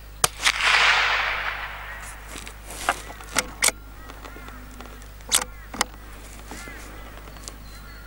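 A Lithgow LA101 bolt-action .22 LR rifle fires once near the start: a sharp crack with a short echo that dies away over about a second. About three seconds in, a few quick metallic clicks follow as the bolt is worked to eject and chamber a round, and two more clicks come a little past five seconds.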